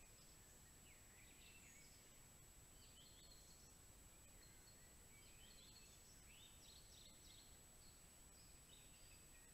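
Near silence in a forest: faint birds chirping and calling at intervals, over a steady thin high-pitched tone.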